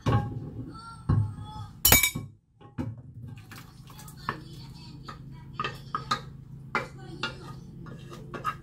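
A spoon scraping and knocking against the inside of an aluminium saucepan as blended butternut squash is scraped out into a glass bowl. A few loud clanks with the pan ringing come in the first two seconds, then a run of lighter scrapes and taps over a low steady hum.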